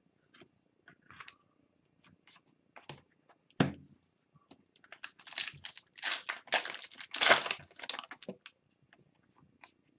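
Foil wrapper of an Upper Deck hockey card pack being torn open and crinkled, densest from about five seconds in until just past eight seconds. Before it come scattered light clicks and one sharp knock about three and a half seconds in.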